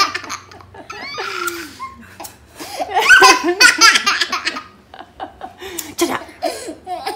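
Children laughing in repeated bursts, a toddler's hearty laughter among them; the loudest burst comes about three seconds in.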